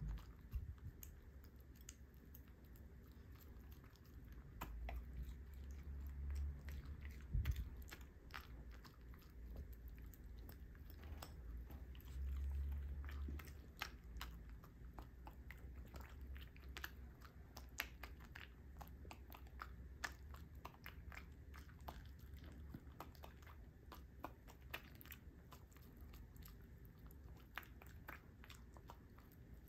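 Miniature dachshund chewing and biting pieces of a raw summer-vegetable salad, a faint, irregular run of many small sharp clicks. There is a soft thump about seven and a half seconds in.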